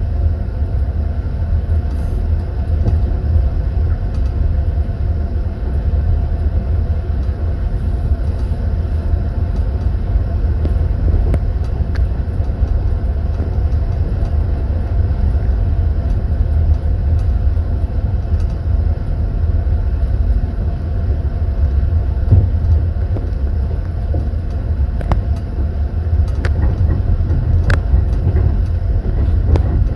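Moving passenger train heard from inside a sleeper compartment: the wheels run on the rails with a steady low rumble, and a few sharp light clicks come through now and then.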